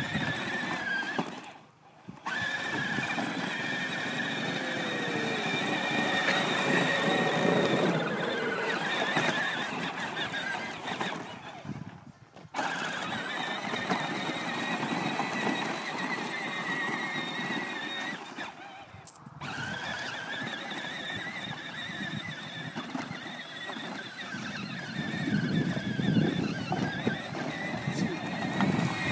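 Battery-powered John Deere Gator ride-on toy driving over dirt: its electric motor and gearbox give a steady, wavering high whine. It cuts out briefly three times, about two, twelve and nineteen seconds in.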